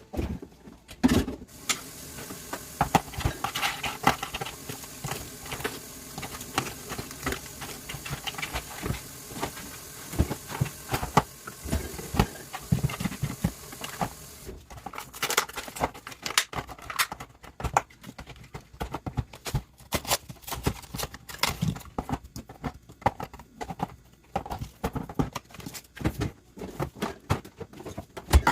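Objects being handled and set down, most likely containers and food items going into a fridge: irregular clicks, taps and rattles throughout, over a faint steady hiss that stops about halfway through.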